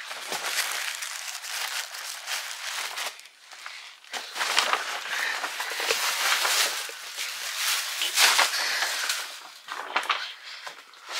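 Tissue paper and a foil gift bag rustling and crinkling as a child digs into the bag for a present. It comes in bursts, with a short lull about three to four seconds in.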